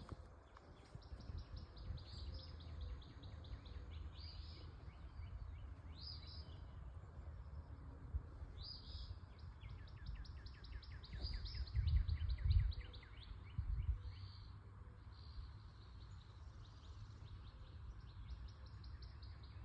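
Songbirds singing repeated rapid trills, phrase after phrase, over a steady low rumble that swells into louder low thumps about twelve seconds in.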